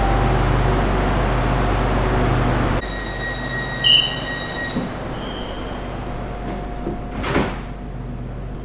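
Hitachi electric commuter train's sliding passenger doors closing. A steady hum drops away about three seconds in, a door warning chime of steady high tones follows, and a short sliding whoosh about seven seconds in marks the doors shutting.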